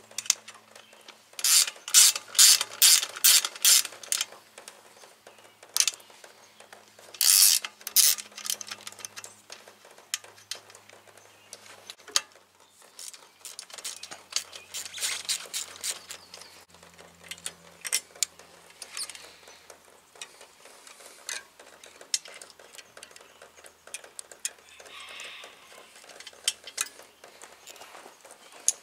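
Ratcheting wrench clicking in two short runs of about three clicks a second as the rear axle nuts are loosened, followed by scattered fainter metal clicks and taps from the wrench and axle hardware.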